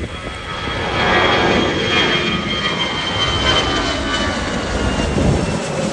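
Airbus A320 jet engines at takeoff thrust: a loud rushing noise with a high whine, swelling about a second in, the whine slowly falling in pitch as the airliner goes by.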